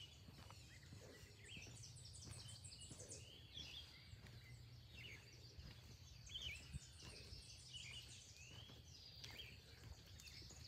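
Faint outdoor birdsong: several birds give short chirps throughout, with a rapid, high-pitched trill in the first few seconds, over a low steady rumble.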